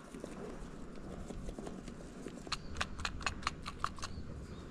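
A spice shaker is shaken over fish fillets in a pan. About two and a half seconds in comes a quick run of about nine light taps, some six a second.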